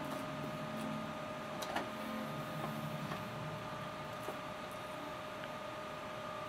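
Steady electrical hum and hiss with a constant whine, and a faint click a little under two seconds in.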